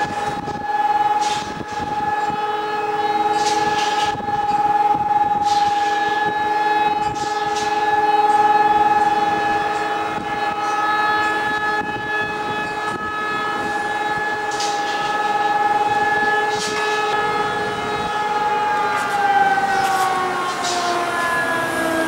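Air raid siren sounding one steady, loud tone with overtones, then winding down, its pitch falling, about nineteen seconds in.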